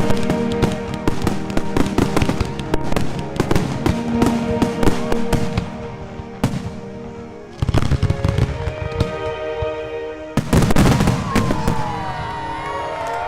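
Fireworks going off: dense rapid crackling for the first several seconds, then bigger bangs about eight and eleven seconds in.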